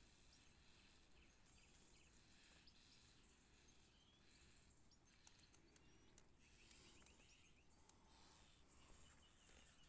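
Near silence: a faint outdoor hiss with a few faint bird chirps, and a short trill about seven seconds in.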